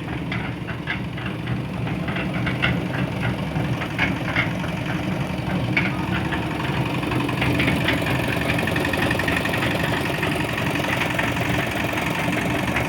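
Diesel engine of a concrete mixer running steadily, with a rapid, irregular metallic ticking over roughly the first half.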